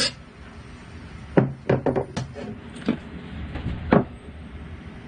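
A handful of wooden knocks and clunks, about six over two and a half seconds with the loudest near the end, as a steel file is set down and a poplar lyre frame is handled on a wooden workbench.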